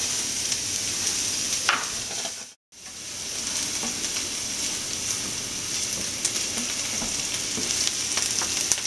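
Diced onions sizzling in hot olive oil in a stainless steel frying pan while being stirred, with faint ticks of the stirring. The sound cuts out completely for a moment about two and a half seconds in.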